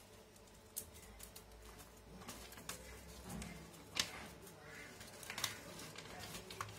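Faint scattered clicks, taps and paper rustling as folded paper component packets are handled in a clear plastic parts box.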